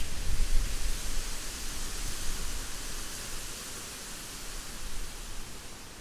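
Steady rain falling on forest foliage, an even hiss, with a low rumble that is loudest in about the first second.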